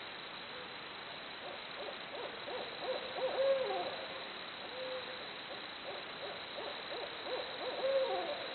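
Barred owls hooting in two bouts of rapid, excited calls, the raucous monkey-like 'jungle' caterwauling of the species. Each bout builds to a louder drawn-out hoot that slides down at the end, about three seconds in and again near the end, over a steady hiss.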